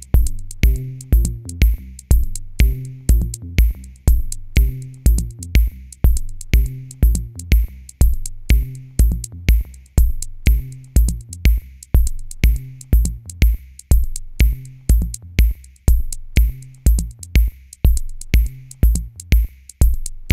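Electronic background music with a steady drum-machine beat and a bass line.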